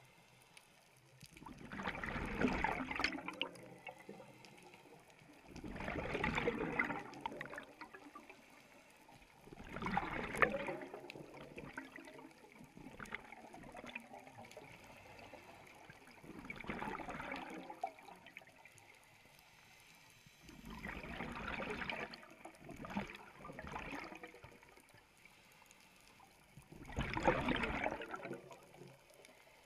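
Scuba regulator exhaust bubbles from a diver breathing out, heard underwater: a bubbling gurgle lasting a second or two, repeating every few seconds with each breath.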